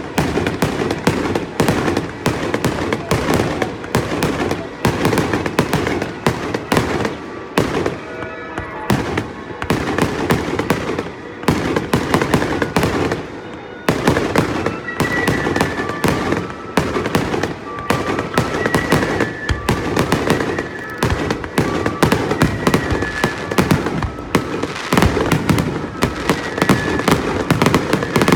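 Fireworks going off in rapid succession, a dense barrage of bangs and crackles with a couple of brief lulls, the middle one the longest.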